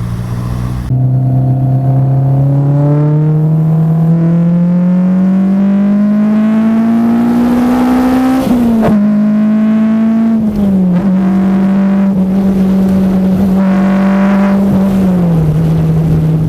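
Honda F20C inline-four breathing through individual throttle bodies, swapped into a Toyota AE86, pulling under throttle. The engine note climbs steadily for about seven seconds, drops sharply with a gear change, then holds near steady with two smaller dips in pitch.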